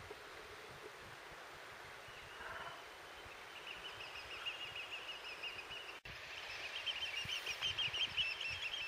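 A flock of birds calling in a rapid, high chatter that starts a few seconds in and grows louder near the end, over steady outdoor wind noise.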